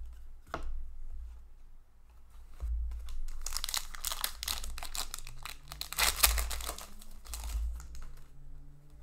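Foil wrapper of an SP Authentic hockey card pack being torn open and crinkled by hand: a crackling rustle that builds about two and a half seconds in, is loudest near the middle and dies away near the end.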